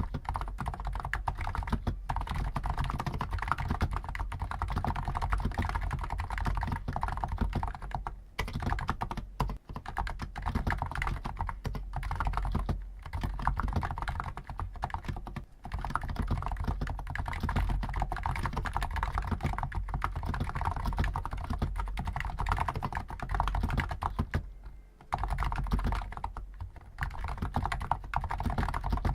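Stock Hansung GTune CHL5 XRGB electrostatic capacitive keyboard with 50 g switches being typed on continuously: fast, dense keystrokes with a few brief pauses.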